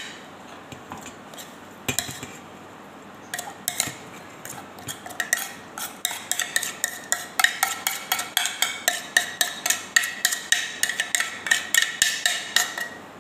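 A spoon scraping and tapping grated carrot off a ceramic plate into a stainless steel bowl. There are scattered clicks at first, then quick taps about four a second with a light ringing note.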